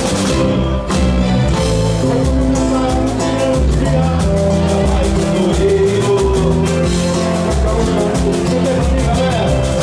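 Parintins boi-bumbá toada music playing, with sustained instrumental notes over a steady rhythm.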